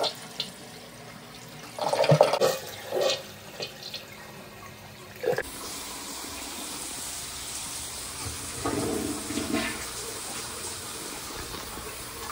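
Toilet flushing after being snaked with a toilet auger: a steady rush of water swirling down the bowl from about five seconds in. A few short, loud knocks and scrapes come before it.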